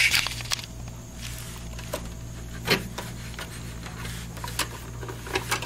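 Scattered light clicks and rubbing from SATA power and data cables being handled and pushed onto drive connectors inside a PC case, over a low steady hum.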